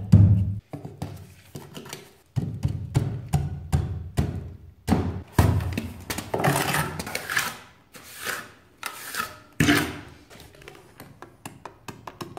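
Masonry trowel scraping and tapping mortar as pre-cut white blocks are pressed and set into a wall opening. Irregular knocks and scrapes throughout, loudest near the start and dying down near the end.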